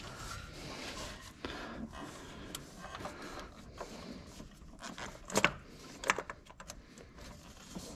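Hand tools working on a car engine: irregular metal clicks and clinks with scraping and rubbing, the sharpest clicks about five and six seconds in.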